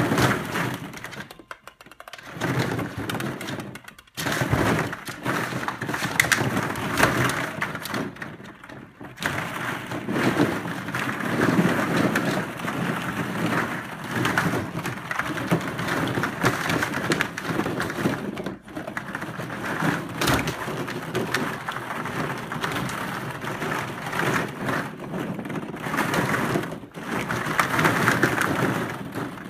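Hollow plastic ball-pit balls clattering and rustling against each other and a plastic wading pool as a miniature schnauzer puppy digs and rolls through them: a dense, continuous jostling with a few brief pauses.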